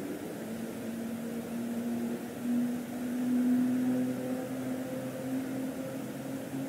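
A steady mechanical hum with a low drone, growing louder about halfway through and then easing off.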